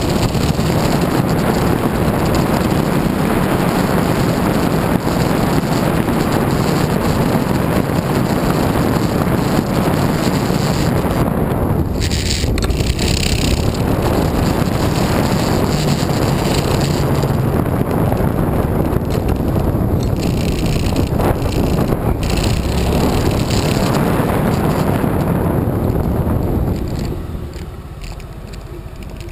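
Wind rushing over an onboard camera microphone on a moving Honda Forza big scooter, mixed with the scooter's engine and road noise: a loud, steady rush that drops in level near the end.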